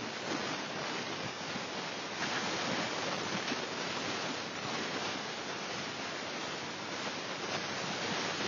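A steady hiss of noise, like static, laid over the soundtrack to blank out swearing.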